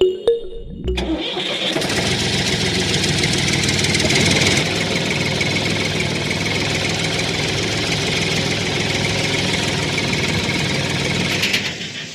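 A small motor running steadily with a dense whirring buzz, starting about a second in and stopping just before the end.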